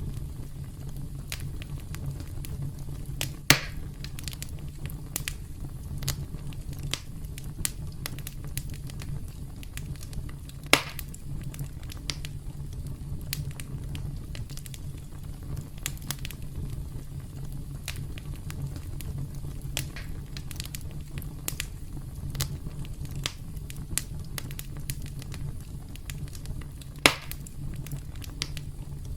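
Campfire crackling over a steady low rumble of flames, with many small snaps and three louder pops.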